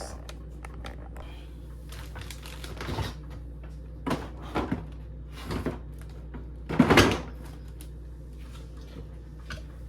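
Knocks and clunks of a refrigerator shelf and the items on it being shifted, done to get the overfilled fridge door to close. A handful of separate knocks, with the loudest clunk about seven seconds in.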